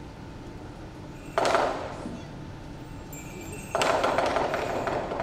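Lion dance percussion band of drum, cymbals and gong: one loud crash about a second and a half in that rings away, then from near four seconds a steady run of cymbal clashes and drum beats.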